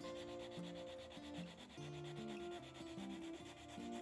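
Hand sanding: sandpaper on a hand-held sanding block rubbing back and forth over a small wooden piece held in a vise, a steady scratchy rasp. Pitched notes of background music change underneath.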